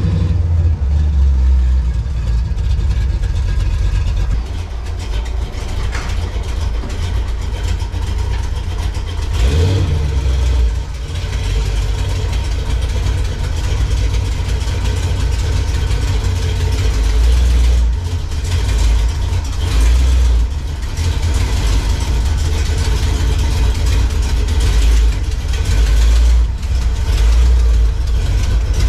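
Cammed 5.0 L V8 of a 1987 Ford Mustang GT running at low speed with a deep, steady exhaust rumble, the level swelling and dipping as the car creeps forward.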